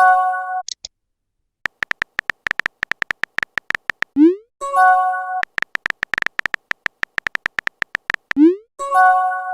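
Phone texting sound effects: rapid runs of keyboard tap clicks, each followed by a short rising whoosh of a message being sent and a brief chime chord of a message arriving. The cycle happens twice, after a chime at the very start.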